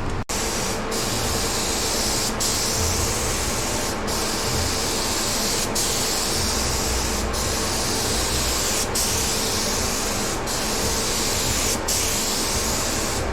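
Cheap compressed-air spray gun spraying epoxy primer: a steady loud hiss of air and paint, broken by very short gaps about every second and a half, with a low hum underneath.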